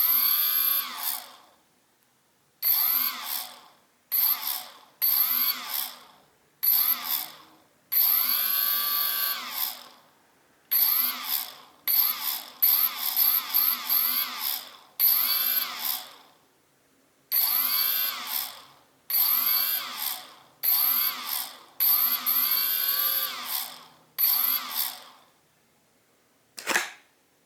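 Cheerson CX-20 quadcopter's stock brushless motor spun up in about fifteen short bursts, each rising in pitch and then winding down with a high whine on top. The owner finds a strange noise as this one motor stops and takes it for a fault.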